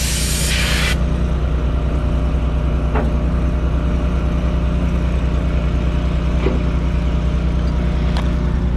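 Carbon arc gouging on a steel axle housing: the loud hiss of the arc and air jet cuts off about a second in. An engine runs steadily underneath throughout, a low drone with a slight regular pulse, with a few faint ticks.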